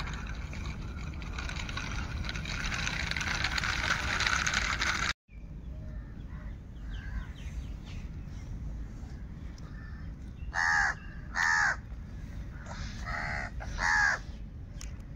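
A crow cawing four times: loud, harsh calls in two pairs, starting about ten seconds in. Before that, a steady hiss.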